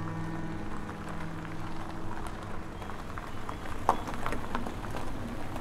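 A car rolling slowly over a gravel road, its tyres crunching and crackling on the loose stones, the crackle thickest about four seconds in.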